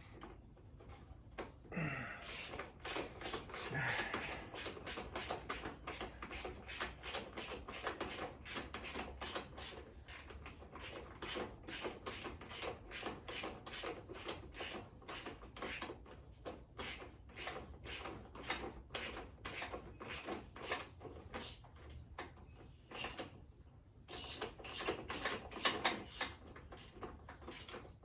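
Hand-tool work on a motorcycle fork leg: a long, regular run of sharp metal clicks or taps, about three a second, with a short pause near the end.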